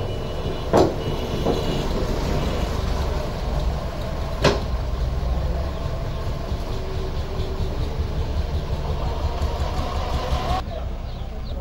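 Dump truck's diesel engine running steadily as the emptied tipper bed comes down and the truck pulls away, with two sharp knocks about a second in and again about four and a half seconds in.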